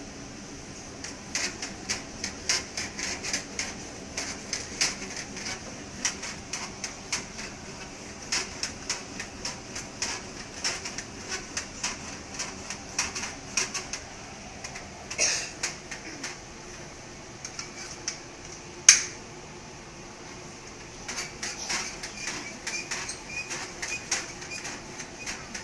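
Quick, irregular clicks and taps from a baby bouncing in a doorway jumper, several a second. They pause for a few seconds past the middle, apart from one sharp louder click, then start again.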